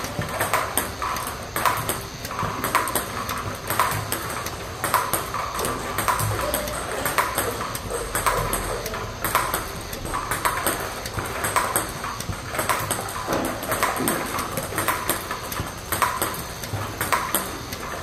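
Table tennis drill: a celluloid-type ball clicking on the table and off a pimpled-rubber paddle in a steady rhythm of sharp pings, roughly two a second, as topspin balls are returned with forehand flicks and hits.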